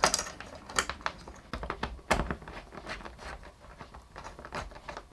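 Scattered light clicks and taps of Slim Fit wall-mount bracket hardware being handled and fitted to the back of a TV, the loudest about two seconds in.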